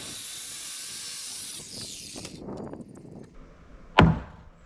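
Power saw finishing a cut through a timber board, its whine sliding down and stopping a little over two seconds in. About four seconds in comes a single loud knock on wood.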